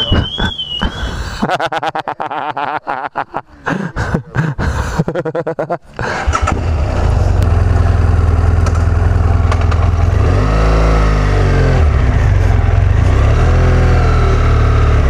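Motorcycle anti-theft alarm warbling, cutting off about a second in; after a few seconds of clicking and rattling, the motorcycle engine starts and runs steadily, its pitch rising and falling briefly twice.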